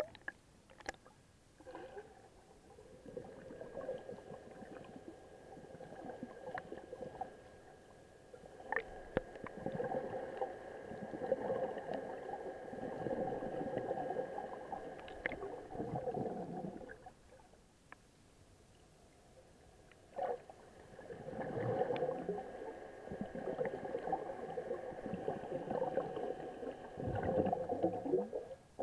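Muffled underwater sound of water sloshing and gurgling around a waterproof camera housing just below the surface, swelling up twice and easing off in between, with a few sharp knocks on the housing and a faint steady hum underneath.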